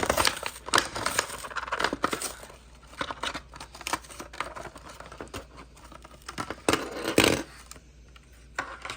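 Hot Wheels cardboard-and-plastic blister pack being torn open by hand: irregular crinkling and ripping, with a louder rip about seven seconds in.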